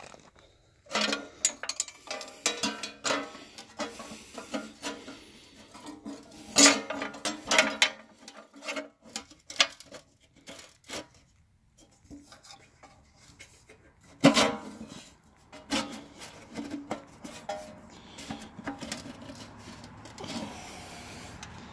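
Handling noise: irregular rubbing, scraping and clicks from hands and tools working over a small lawn-mower engine, with no engine running.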